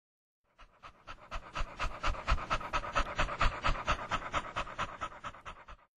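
A dog panting rapidly, about five quick breaths a second, starting about half a second in, growing louder, then fading out near the end.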